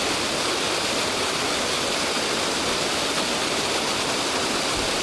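A sewer-plant spillway's outflow pouring into a creek pool: a steady rush of churning white water.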